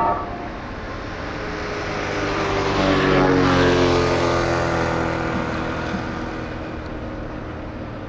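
A vehicle passing by: its engine grows louder, peaks about halfway through and fades, its pitch dropping as it goes by. A brief sharp sound comes right at the start.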